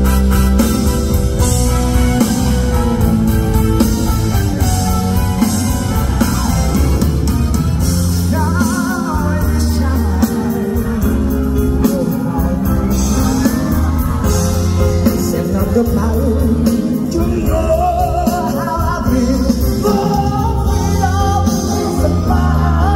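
A live pop-rock song over a concert PA: a male voice singing over guitar and a heavy, steady bass beat.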